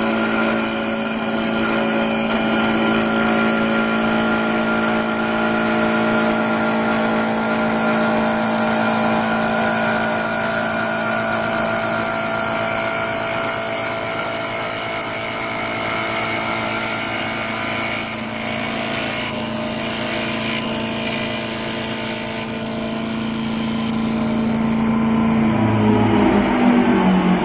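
CNC wood-turning lathe running, with a steady machine hum and a high hiss over it. The hiss cuts off suddenly about 25 seconds in, and near the end the hum falls in pitch as the machine winds down.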